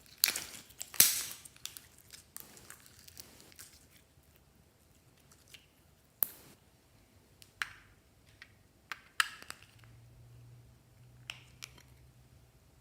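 Crunching and crackling as slime is worked together with crushed, crunchy add-ins. A dense burst of crackles comes in the first second and a half, then a few separate sharp clicks and short crackles follow later.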